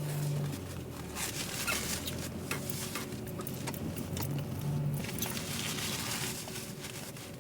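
Scratchy rubbing and rustling close to the microphone: a hand rubbed against a cheek wearing foundation. A low steady hum sounds under it briefly at the start and again around the middle.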